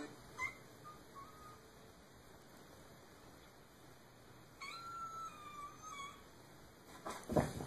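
A kitten mewing: a couple of short mews about half a second in, then one longer, slightly falling mew a little past the middle. A loud thump near the end.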